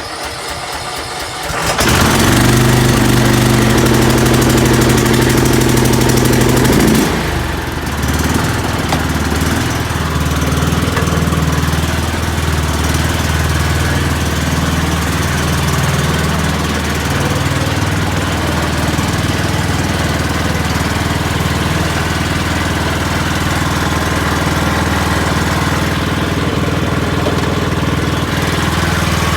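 2018 Troy-Bilt riding lawn mower engine cold-started on full choke: the starter cranks for under two seconds and the engine catches at once, starting easily. It runs loud and steady, then about seven seconds in drops a little in level and settles into a steady run.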